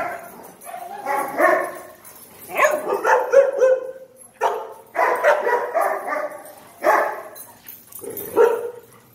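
Dogs barking in repeated volleys: about five bursts of several barks each, with short pauses between them.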